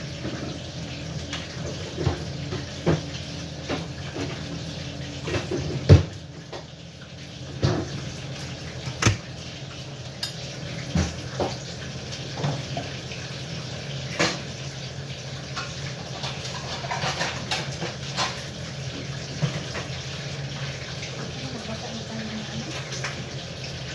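Scattered clinks and knocks of metal kitchenware, a spoon against a metal muffin tin, as fried vermicelli nests are pressed into shape; the loudest knock comes about six seconds in. A steady low hiss runs underneath.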